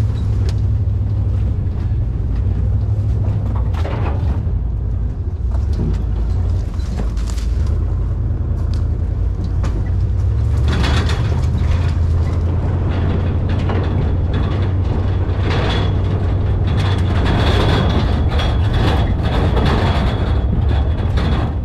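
Pickup truck driving up a rough dirt road, heard from the open bed. There is a steady low rumble, and the bed and ladder rack rattle and knock over the bumps. The rattling and clatter get louder about halfway through, with a thin high whine running under it.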